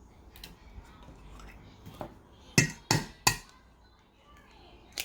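Kitchen things knocking against a mixing bowl while ingredients go in: three sharp taps in quick succession about halfway through, with a lighter clink before them and another at the end.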